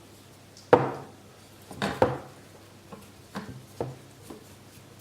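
A few sharp knocks and clacks of hard plastic being handled and set against a work surface, the loudest about a second in and two more close together around two seconds, then lighter taps, as fabric is stretched over a headphone earcup.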